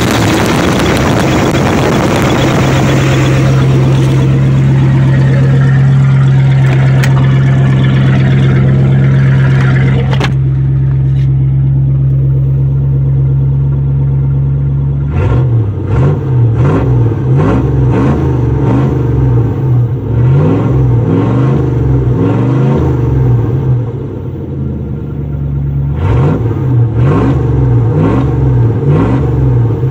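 Carbureted 7.4 L 454 big-block Chevy V8 running loud through an exhaust cut open ahead of the catalytic converter. It holds a steady fast idle, then from about halfway it is revved up and down over and over.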